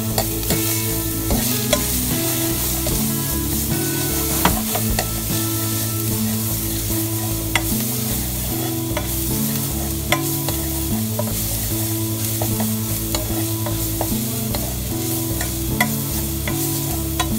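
Minced garlic and ginger sizzling in hot oil in a metal frying pan, stirred and scraped with a metal utensil, with scattered small clicks of the utensil against the pan. A steady low hum runs underneath.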